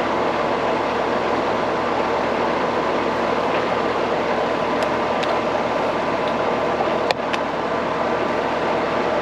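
A steady whooshing hum of running machinery, with a few light clicks and a sharper tap about seven seconds in.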